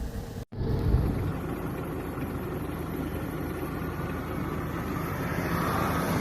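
A vehicle engine running steadily with a low rumble. The sound cuts out briefly about half a second in.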